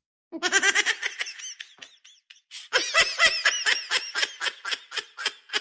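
A high-pitched female voice laughing in quick, pulsing bursts. One bout trails off, and after a short pause a second, longer bout of laughter starts.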